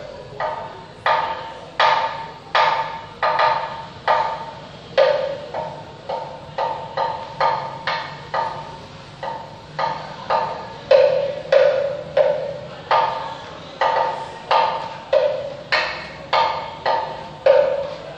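Wooden percussion music: sharp struck knocks in a loose rhythm of about one to two a second, moving between a lower and a higher note, each ringing briefly.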